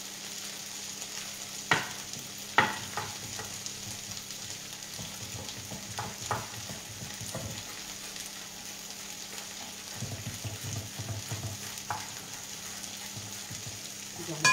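Thinly sliced artichokes sizzling steadily in oil in a frying pan. A few sharp knife taps on a wooden cutting board as parsley is chopped, with a run of quicker, softer chopping a little after the middle.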